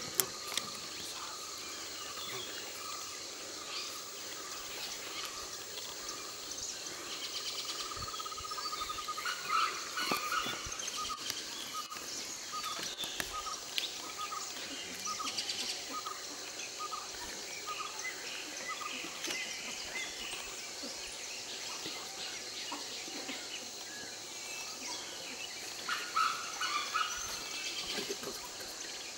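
Forest birds calling over a steady high insect drone, one bird repeating a short note about twice a second for several seconds.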